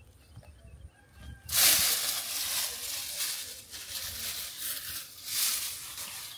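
Grass and fern leaves rustling loudly as they are pushed through and brushed, starting suddenly about a second and a half in and coming in surges.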